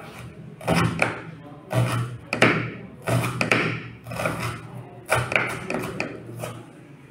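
Chef's knife slicing a red onion on a wooden cutting board, the blade knocking on the board in irregular strokes, about a dozen in all, over a low steady hum.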